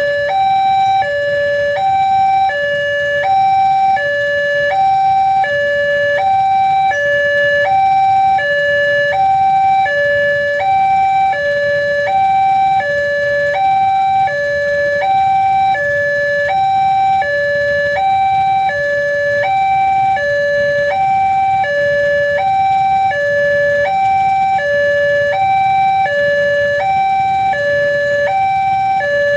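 Railway level-crossing warning alarm sounding: an electronic two-tone signal that alternates steadily between a higher and a lower note, each held about half a second.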